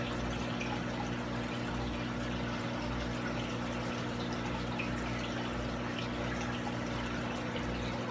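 Aquarium filter running: steady trickling, splashing water over a low, even hum.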